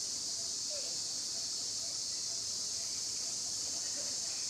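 Steady, unbroken high-pitched drone of an insect chorus. A couple of faint short cries sit underneath it.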